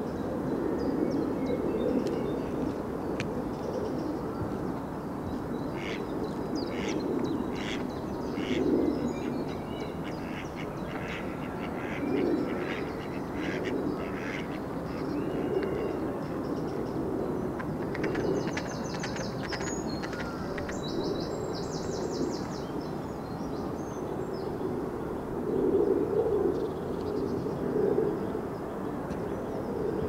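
Lakeside park ambience: ducks quack now and then, mostly in the first half, over a steady background rush. A songbird sings a rapid high trill briefly past the middle.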